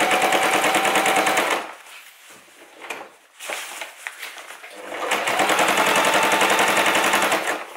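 Household electric sewing machine stitching a double seam through heavy canvas: rapid, even needle chatter over a steady motor whine. It runs in two bursts with a pause of about three seconds between them.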